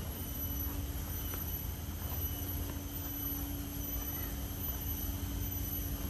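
Steady low rumble with a constant droning hum over it, an unchanging outdoor background noise.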